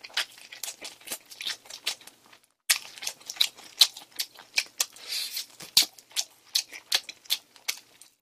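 Close-miked crunching and chewing of crispy fried chicken: many sharp, irregular crunches several times a second, pausing briefly about two and a half seconds in.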